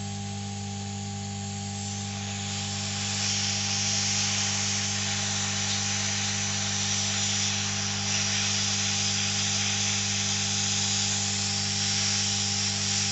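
Hot air rework station (Quick 861DW) blowing through its nozzle onto the board. It is a steady hiss that swells in over the first few seconds as the solder on a shorted rectifier diode's legs is heated to lift it off. A steady electrical hum runs underneath.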